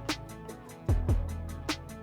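Background music with a steady drum beat, kick drums and quick hi-hat ticks.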